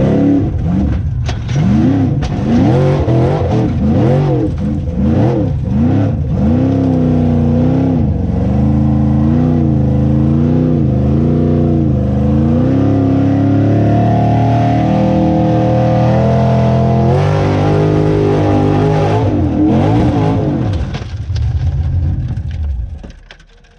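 Formula offroad buggy's engine heard from inside the open cockpit, revved up and down over and over as the throttle is pumped on a steep dirt climb. It is held at high revs for a few seconds midway, swings again, then dies away near the end.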